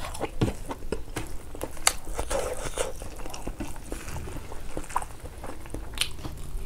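Close-up eating sounds of a man eating rice and pork leg curry by hand: wet chewing, lip smacks and irregular clicks, with fingers mixing rice on a metal plate around the middle.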